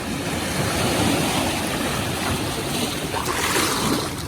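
Sea waves washing onto a beach: a steady rushing wash that swells, loudest about three seconds in.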